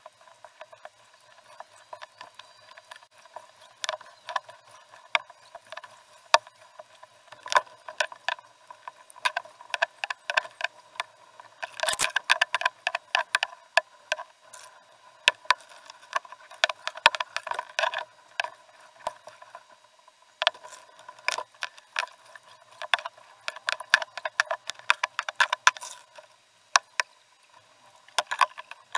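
Irregular clicking, rattling and knocking from a paddled canoe: paddle strokes and gear knocking against the hull and the boat-mounted camera, with no bass, in busier bursts around the middle and later on.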